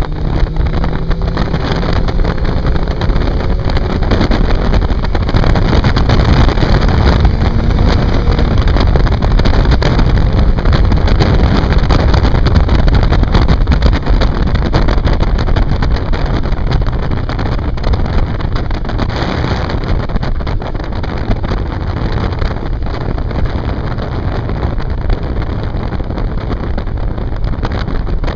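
Motorcycle riding at road speed heard from an onboard microphone: steady wind rush over the engine, with the engine note climbing during the first few seconds.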